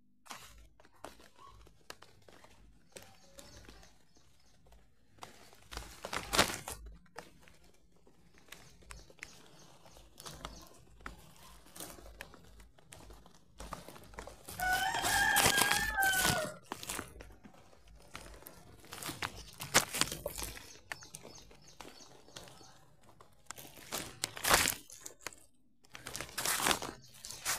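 A rooster crows once, about halfway through: a single call of about two seconds that drops in pitch at the end. Scattered rustles and sharp knocks come before and after it.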